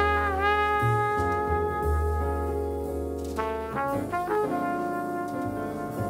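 Jazz quartet playing a slow ballad: a trumpet holds a long note that dips slightly in pitch just after it starts, then plays a short run of notes into another held note, over piano and upright bass.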